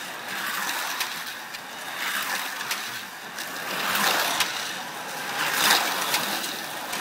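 Toy slot cars whizzing past on a plastic track, their small electric motors whirring up and fading away with each pass, about every one and a half to two seconds, with light clicks.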